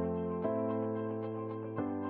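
Background music: sustained chords, a new one struck about half a second in and again near the end, each fading slowly.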